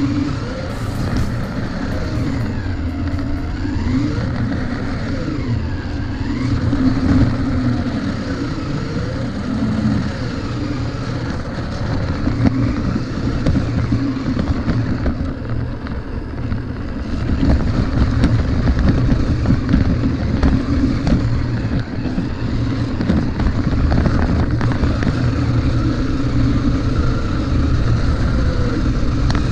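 Toy RC monster truck's motor and gears whining, the pitch rising and falling as the throttle changes, over a rattling rumble of the chassis and tyres on concrete, heard from a camera mounted on the truck itself.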